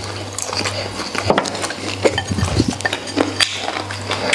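Close-miked chewing of braised pork rib with cartilage in it, a string of short irregular crunchy clicks, mixed with chopsticks clinking against a porcelain rice bowl, over a steady low hum.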